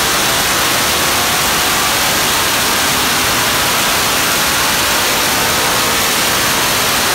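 LS3 V8 crate engine with a Comp Cams camshaft and long-tube headers running at full throttle on an engine dyno. It is heard as a loud, steady, harsh noise with no clear pitch.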